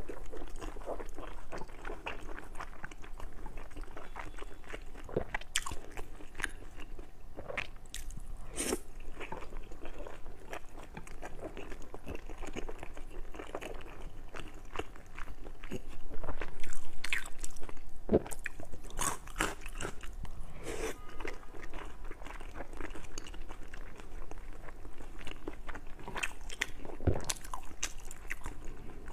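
Close-miked crunching and chewing of fried pork intestines: a run of crisp bites and chews at an uneven pace, loudest in a burst about halfway through.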